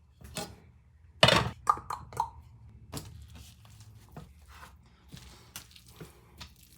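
Kitchen handling sounds: a loud clatter about a second in, then a few ringing clinks and scattered light knocks, as utensils and dishes are handled.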